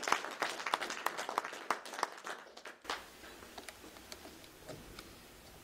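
A small audience applauding, which dies away about three seconds in.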